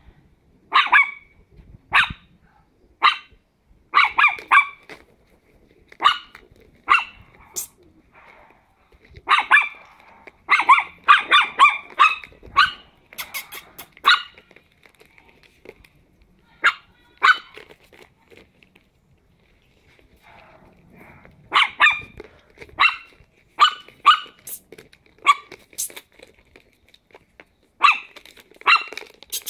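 Ten-week-old Chihuahua puppies yapping in short, high-pitched barks as they play. The barks come in quick clusters, densest about ten to fourteen seconds in, with short pauses between the clusters.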